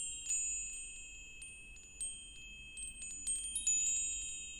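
Metal wind chimes tinkling: several high, bell-like tones struck over and over and left ringing, with a louder cluster of strikes about three and a half seconds in.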